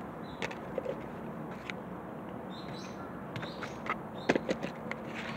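Quiet outdoor background with scattered soft clicks and rustles, the loudest a cluster about four seconds in, and a few faint bird chirps.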